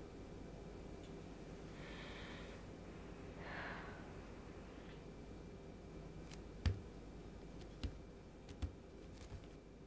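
Quiet room tone with two soft breaths a few seconds in, then three light taps spaced about a second apart near the end, bare feet stepping on a tile floor.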